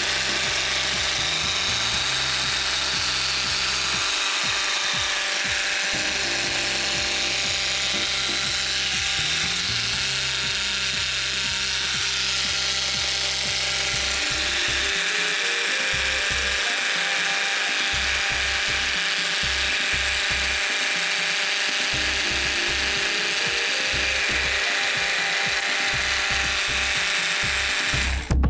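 Bosch GST 12V-70 cordless jigsaw running with no load, its blade stroking up and down in the air at a steady speed.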